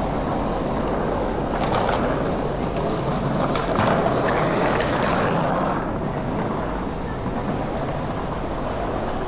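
Outdoor city street ambience: a steady rumble of traffic and rolling noise with a few light knocks, easing off and losing its hiss about six seconds in.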